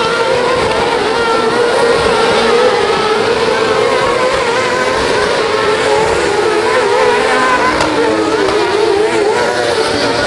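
Engines of several autocross sprint cars racing on a dirt track: a mix of engine notes rising and falling as the drivers rev and lift.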